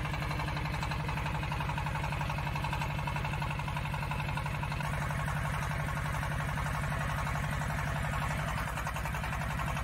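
A water well drilling rig's single-cylinder diesel engine running steadily at idle with a fast, even beat. Its note shifts slightly near the end.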